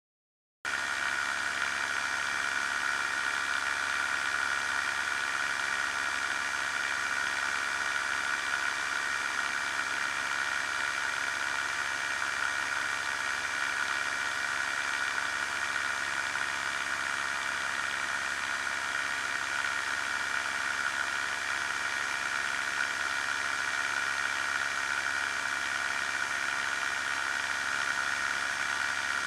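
Challenger II ultralight's pusher engine running steadily in flight, mixed with wind rush on a wing-mounted camera. The sound cuts in abruptly about half a second in and holds an even level.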